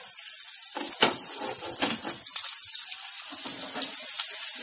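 Egg-and-grated-potato patties sizzling in oil in a nonstick pan. There are a few light knocks and scrapes, about one and two seconds in, as the lid comes off and a spatula goes under the patties to flip them.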